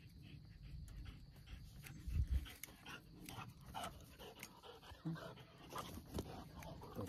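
A dog panting in a run of quick, rasping breaths, with a single low thump about two seconds in.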